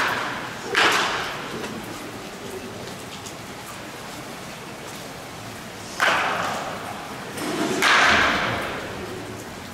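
Wooden bats cracking against pitching-machine balls in an indoor batting cage, with hall reverberation. Two sharp hits about five seconds apart, each dying away, then a longer, louder swell of noise near the end.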